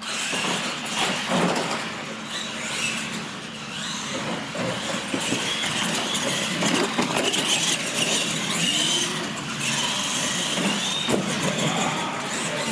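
Radio-controlled monster trucks racing off the start. Their electric motors whine, rising and falling with the throttle, over the scrub and rumble of their tyres on a concrete floor.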